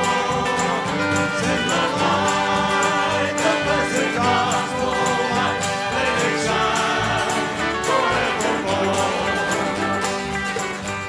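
Bluegrass gospel band playing live, with a fiddle carrying the melody over strummed acoustic guitars, bass and drums keeping a steady beat.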